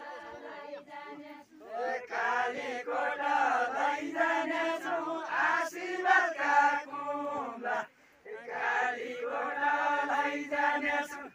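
A group of men singing a Nepali Deuda folk song together, several voices chanting the same melody. The singing swells about two seconds in and breaks off briefly about eight seconds in before the next line starts.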